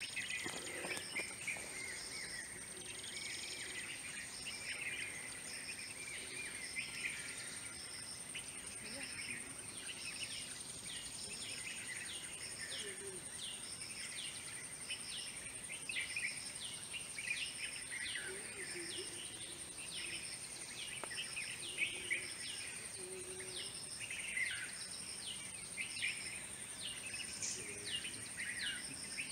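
Woodland ambience: many small birds giving short, downward-sliding chirps over a steady, high-pitched insect drone, with a short high call repeating about once a second.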